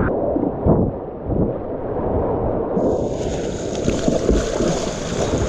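Wind buffeting the microphone, with a dense low rumble throughout; about three seconds in, the hiss of rushing white water joins in and carries on steadily.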